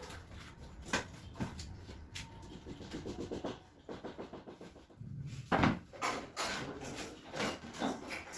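Scattered knocks and clicks of carpentry work on a wooden almirah, with a louder knock about a second in and the loudest just past halfway, and a quick run of light ticks around three seconds in.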